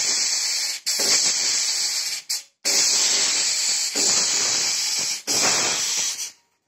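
Antari F-80Z fog machine blowing a jet of fog: a steady hiss, broken by a few brief gaps, that cuts off near the end.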